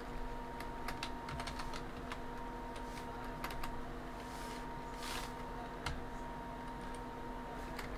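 Computer keyboard typing: irregular keystrokes, some in quick runs, over a steady electrical hum.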